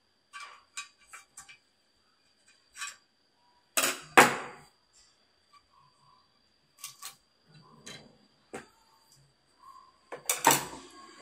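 Steel screwdriver tips clicking and scraping against the anode cap and metal frame of a CRT picture tube while its high voltage is discharged, with two loud sharp snaps about four seconds in. Scattered smaller clicks follow as the anode cap is worked off, and another loud clatter comes near the end.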